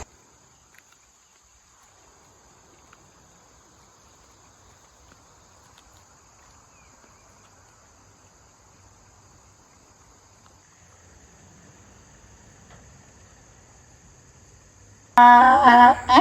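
Faint, steady, high-pitched chirring of insects. A loud voice cuts in near the end.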